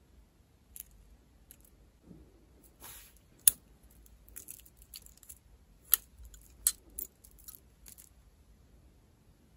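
A string of small, sharp clicks and taps from nail-art tools and supplies being handled, with a brief rustle about three seconds in; the loudest click comes just after.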